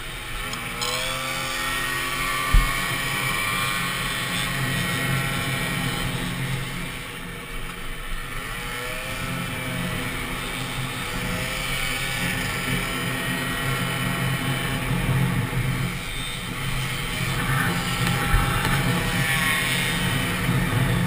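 Peugeot Fox 49cc two-stroke moped engine running hard at race speed, heard onboard. Its pitch climbs twice, right at the start and again about eight seconds in, as it accelerates out of corners. Two short knocks come through, one about two and a half seconds in and one near the end.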